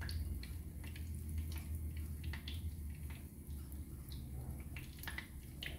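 A breaded chicken breast piece frying in hot oil in a skillet: scattered small pops and crackles over a low steady hum.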